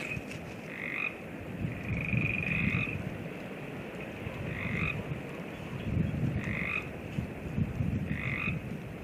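A frog calling over and over, a short croak every second or two, with one longer trilled call about two seconds in. Wind rumbles on the microphone underneath.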